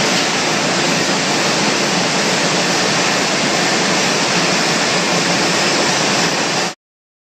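Steady rushing noise of a conveyor belt running and pouring bulk potatoes into a truck trailer; it cuts off abruptly near the end.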